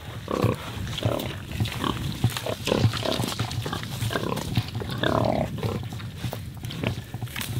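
Several Iberian pigs grunting as they root in the soil, a string of short, irregular grunts.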